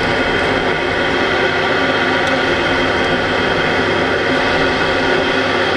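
The 12-volt fan of a homemade ice-chest air cooler running steadily and blowing air out through its pipe: a rush of air under a steady whine of several tones.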